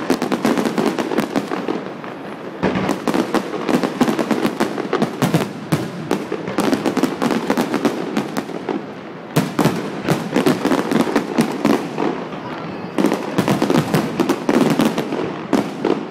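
Fireworks finale barrage: many aerial shells bursting in rapid succession, a dense crackle of bangs that comes in heavy waves with brief lulls between.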